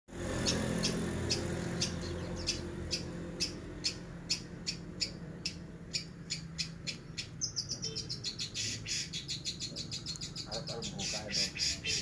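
Caged long-tailed shrike (cendet) calling in short, sharp, high notes, about two a second at first, then quickening to three or four a second after about seven seconds.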